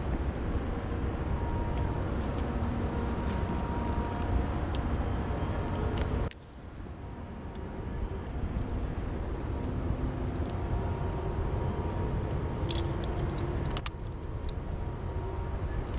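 Metal rope-access hardware (carabiners, descender and other karabiner-clipped gear) clinking and clicking as it is handled, over a steady low rumble that drops out suddenly about six seconds in and builds back.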